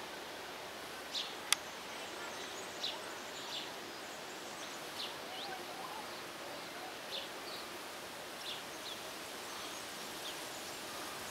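Outdoor ambience: a steady background hiss with short, scattered bird chirps every second or so, and a single sharp click about a second and a half in.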